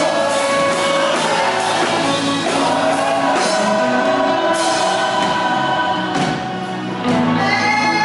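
Live gospel worship music: a group of voices singing together over band accompaniment with cymbals.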